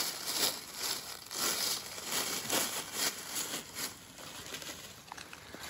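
Dry fallen leaves and a plastic bag rustling and crinkling as a person moves and kneels in the leaf litter, in irregular crackles that get quieter near the end.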